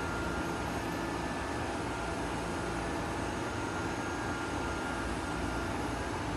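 Schindler elevator machine room: a steady hum and hiss from the lift machines and their drive equipment, with a faint high whine that fades in and out.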